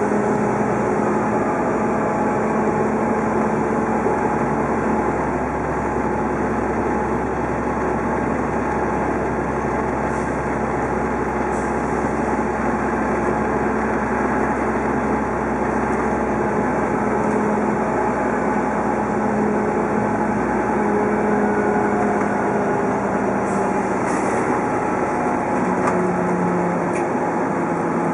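Interior of an Orion VII hybrid-electric city bus under way: the diesel-electric drive runs steadily with road noise, and a steady whine sits over it.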